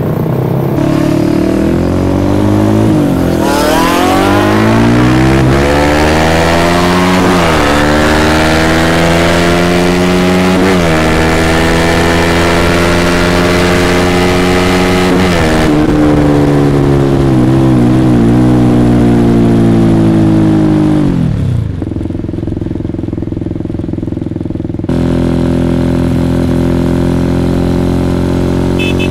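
Sport motorcycle engine accelerating hard, its pitch climbing and dropping back at each of four upshifts. It then winds down as the bike slows, and settles to a steady, lower running sound near the end.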